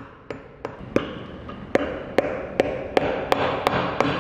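Small hammer tapping decorative heel tacks into a stacked leather heel, in a steady run of sharp taps about two to three a second that grow louder partway through, with a hiss behind them.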